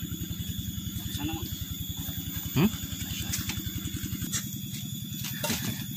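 A small engine running steadily at idle, a fast, even low pulse.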